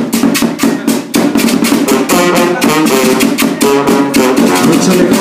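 Mexican banda music: brass and reed melody over drums keeping a steady beat.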